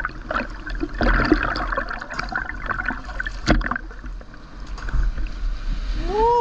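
Seawater sloshing and gurgling against a GoPro's waterproof housing at the surface, with an uneven crackle of small splashes and one sharp knock about halfway. Near the end comes a short hoot that rises and falls in pitch.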